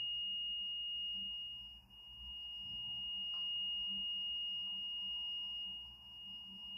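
A single steady high tone of about 2,858 Hz from a smartphone tone generator, sounding into a plastic-bottle tube whose lower end is closed by water. The tone's loudness drops sharply about two seconds in, swells back up and sinks again near the end, as the length of the air column moves in and out of resonance with the tone.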